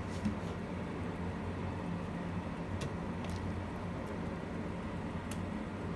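Steady low kitchen hum, with a few faint light clicks as a utensil touches the stainless steel pot while the noodles are lifted out.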